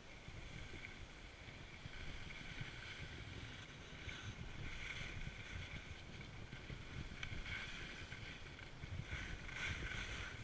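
Skis sliding and scraping over packed snow, the hiss swelling with each turn every two to three seconds, with wind rumbling on the microphone.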